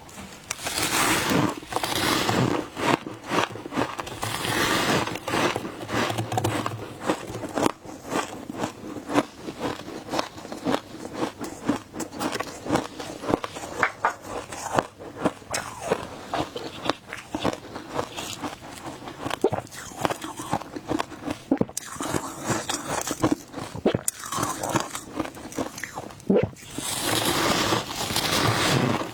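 Close-up chewing and crunching of shaved ice dusted with milk powder: dense, irregular crunches, now and then broken by a longer hiss.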